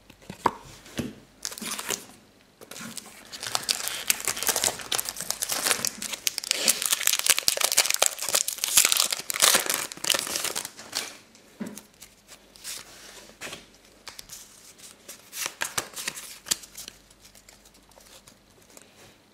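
Foil Pokémon booster pack wrapper being torn open and crinkled by hand. The crackling is dense for the first half, then thins to occasional crinkles as the cards are handled.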